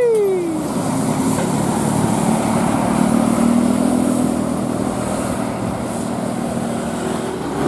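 Road traffic going by: a steady rush of engine and tyre noise with a low engine drone. It opens on the falling tail of a gliding horn tone.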